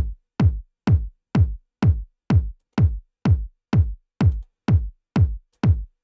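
Tech house kick drum playing alone in a steady four-on-the-floor loop, about two hits a second. It is a 909 kick layered with a sub and a click and run through glue compression, saturation and a touch of overdrive; each hit is a sharp click that drops quickly in pitch into a deep low thud.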